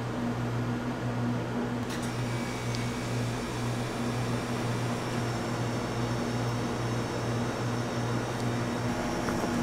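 Steady low hum of an electric fan or cooling unit running, with one faint click about two seconds in.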